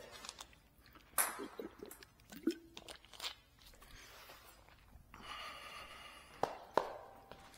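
Scattered footsteps and a few sharp knocks, with a short rustling noise a little after five seconds in.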